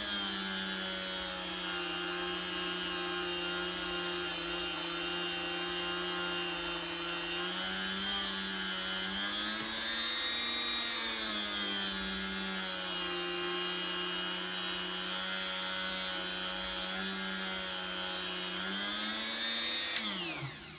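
Rotary tool running a soft cotton buffing wheel, polishing a steel watch bracelet: a steady motor whine that rises a little in pitch twice, then winds down and stops near the end.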